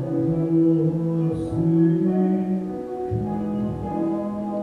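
Slow piano music with long held low notes.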